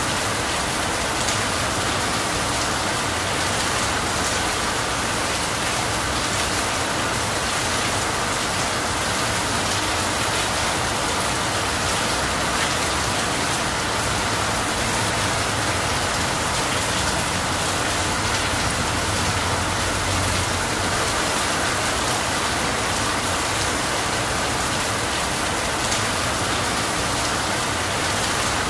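Steady rain falling on a leafy tree: an even hiss that does not let up.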